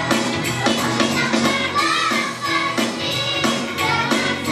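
A group of young girls singing together over a music accompaniment with a steady beat.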